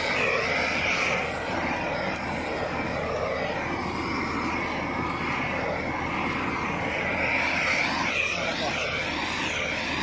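Gas torch flame making a steady rushing noise while heating a heat-shrink power cable termination.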